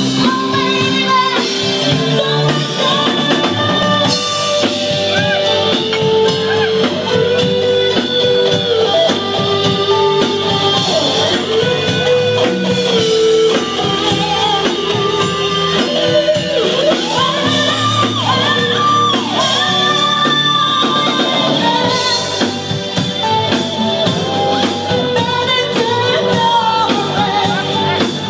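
Live band playing a song with a singer, guitar and drums, loud and continuous.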